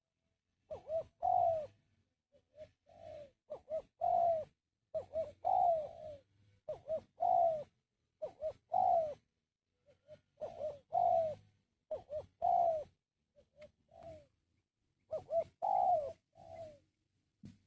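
Spotted dove (tekukur) cooing, short phrases of low rounded coos repeated every second or two with brief pauses between them.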